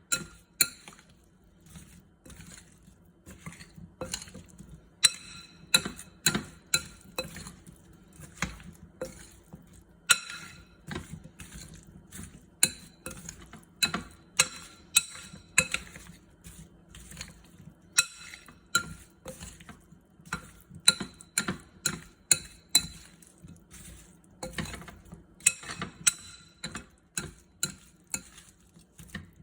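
A utensil clinking repeatedly and irregularly against a bowl while salad is stirred and tossed, each knock leaving a short ring at the same pitch.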